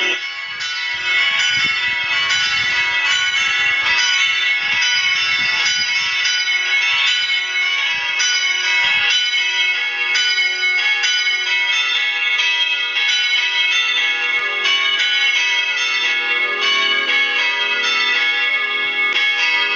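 Church bells ringing two at a time, a dense peal of overlapping strokes whose ringing tones blend continuously. An irregular low rumble runs underneath through the first half.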